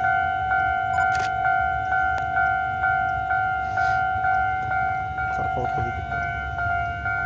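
Level-crossing warning bell ringing, a steady electronic ding repeating about twice a second, signalling that a train is approaching. A few faint clicks are heard over a low background rumble.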